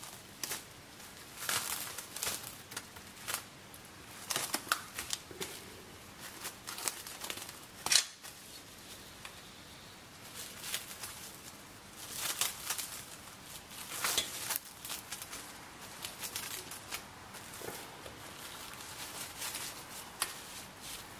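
Plastic cling film crinkling in irregular bursts as it is stretched and pressed down over a glass baking dish, with one sharp click about eight seconds in.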